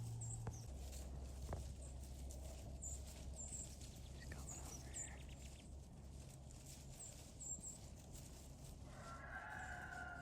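Faint woodland ambience with scattered short, high bird chirps over a steady low hum; about nine seconds in, a long, slightly falling tone comes up in the distance.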